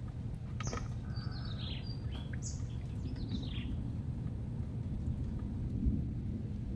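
A bird calling, a run of quick high chirps and falling whistles over about three seconds, then stopping, over a steady low rumble.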